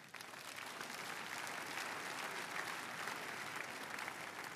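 A congregation applauding: dense clapping that builds over the first second, holds steady, and eases off slightly near the end.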